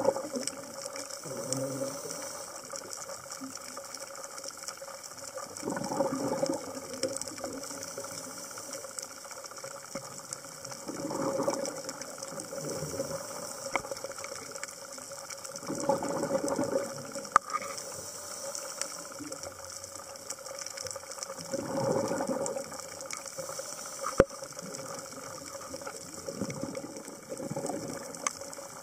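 A scuba diver breathing through a regulator underwater: a burst of exhaled bubbles about every five to six seconds, with a few sharp clicks in between.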